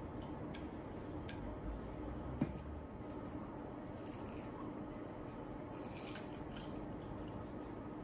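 A small blade scratching and cutting at the seal around the neck of a Buffalo Trace bourbon bottle, in light scrapes and clicks, with one sharper click about two and a half seconds in. Short scratchy rustles follow as the seal is worked at by hand.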